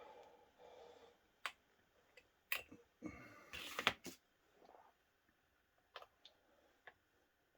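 Scattered light clicks and taps of small hand tools and metal parts being handled, the loudest cluster about three and a half to four seconds in. They come from working the spring in a strimmer's spark plug boot back onto the end of its ignition wire.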